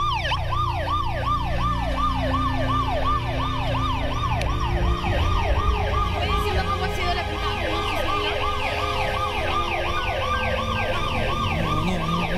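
Emergency vehicle siren sounding in a fast yelp, rising and falling about four times a second, with a second siren overlapping it from about five seconds in, over a low rumble.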